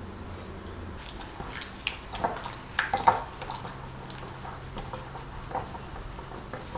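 Wet squishing and dripping as a gloved hand mixes an oily spice marinade with lemon slices in a glass bowl. The loudest squelches come about two to three seconds in, with smaller ones after.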